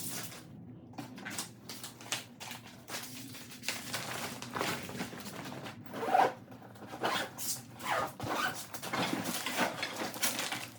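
Zipper on a paddleboard carry backpack being worked in a series of short strokes.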